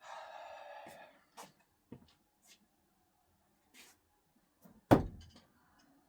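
A thrown screwdriver strikes the target with a single loud thunk about five seconds in. A second-long hiss comes at the start, and a few faint clicks come before the hit.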